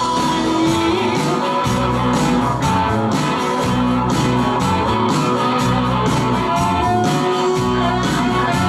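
Live rock band playing an instrumental passage: electric guitars, bass guitar, keyboards and drums keeping a steady beat.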